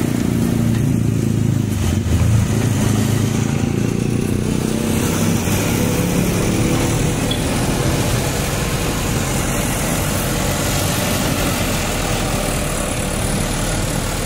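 JCB backhoe loader's diesel engine running under load as the backhoe arm works an earth bank. It is a little louder over the first few seconds, with a brief peak about two seconds in, then runs steadily.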